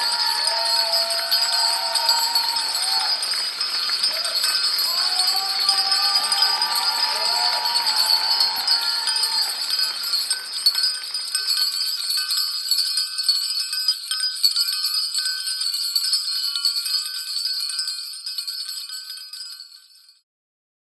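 Music with a steady jingling of bells running through it, fading out near the end.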